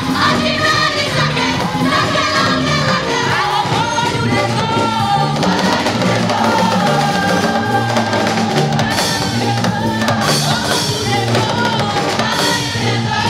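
A gospel choir singing into microphones in several voices, backed by a live band with drum kit, bass line and guitar, at a steady loud level.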